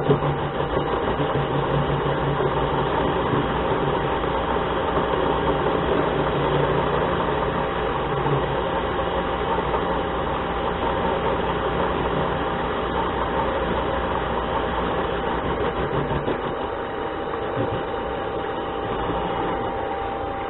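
Harbor Freight mini lathe running steadily with a constant whine from its drive, while the tool takes a light hand-fed turning cut of 3 to 4 thousandths on the spinning workpiece.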